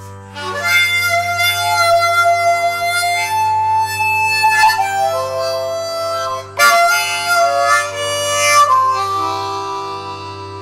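Harmonica played with cupped hands: a slow melody of long held notes with some sliding notes, over a steady low drone. The harmonica comes in about half a second in, breaks off briefly after about six seconds, then eases onto softer held notes near the end.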